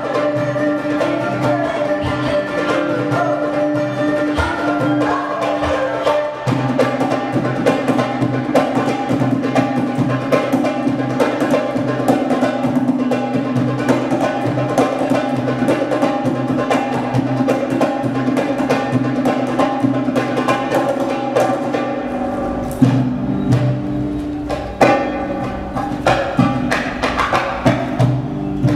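Live traditional ensemble music: held notes from string instruments over a fast, dense patter of hand percussion, the held pitches changing a few times.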